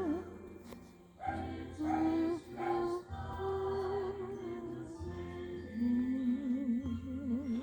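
Background music: a voice singing slow, held notes with vibrato over a low bass.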